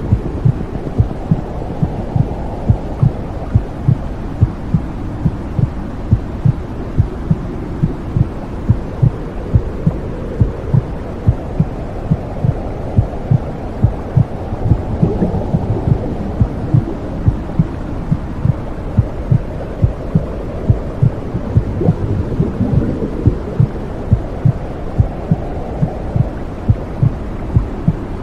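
Womb sound for soothing a baby: a heartbeat thumping steadily about twice a second over a low, muffled whooshing rumble.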